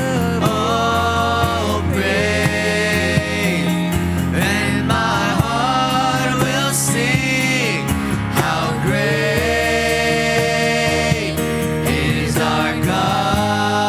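Christian worship music: singing with long held notes over a band with steady bass notes.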